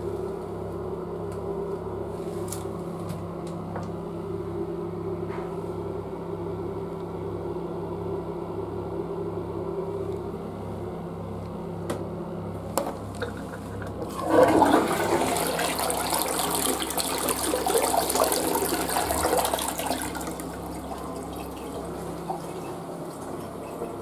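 A steady low hum, then a couple of sharp clicks, then a Western-style tank toilet flushes about fourteen seconds in. The water rushes loudly for about six seconds, then dies down.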